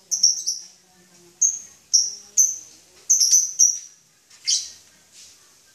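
Lovebirds giving short, shrill chirps, about a dozen of them at irregular intervals, some in quick runs of three or four.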